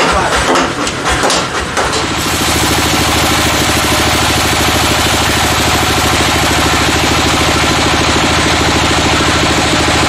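Music for the first two seconds. Then a log band sawmill runs steadily as its blade cuts lengthwise through a white teak (gmelina) log, making an even mechanical hum.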